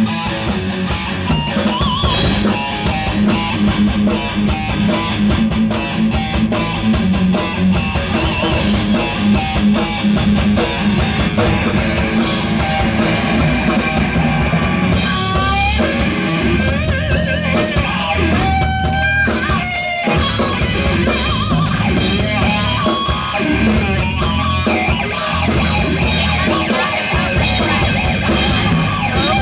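Live heavy metal electric guitar solo on a Dean electric guitar, played through distorted amplification over a drum kit. In the middle stretch the lead bends and slides between notes.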